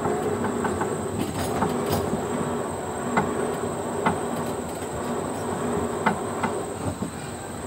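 Amusement-park ride car running along a narrow rail track: a steady hum with scattered sharp clicks and knocks from the wheels on the rails.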